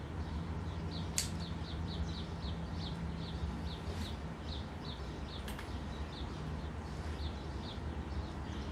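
A small bird chirping over and over, short slightly falling chirps about three a second, over a steady low hum, with a few sharp clicks in between.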